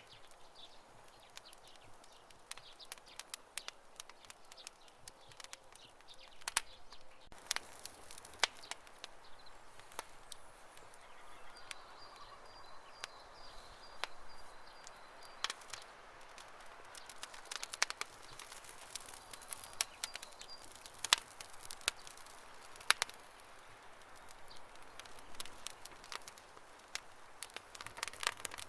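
Wood campfire crackling, with irregular sharp pops over a soft steady hiss.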